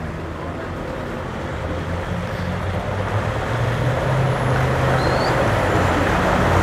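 Wellcraft Excel cabin cruiser motoring slowly through a no-wake channel, its engine a steady low hum that grows louder as the boat approaches, with water churning from its wake.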